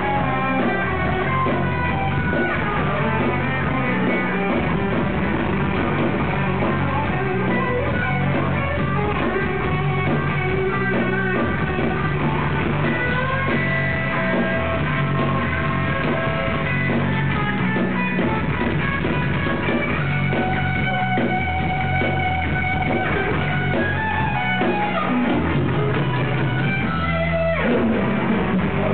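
Live heavy metal band playing, an electric guitar carrying a lead line with long held notes over bass and drums. It is heard loud through a camera microphone in the crowd.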